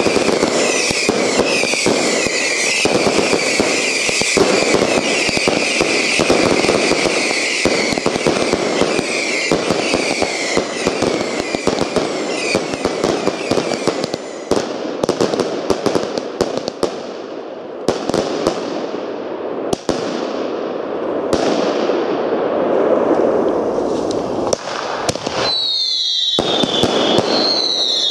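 Consumer firework batteries firing whistling comets: for about fourteen seconds a dense run of sharp reports and crackle under steady wavering whistles, then single shots, each a whistle falling in pitch, every second or two. Near the end a louder, higher warbling whistle.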